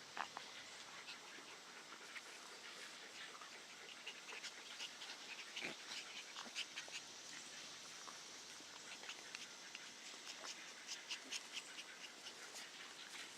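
Puppies panting, with many faint, short, scratchy clicks scattered irregularly throughout.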